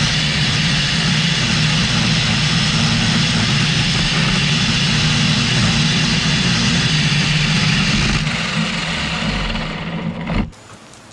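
Power lawn edger running steadily at full speed with its blade spinning, a loud machine drone. It cuts off suddenly about ten and a half seconds in.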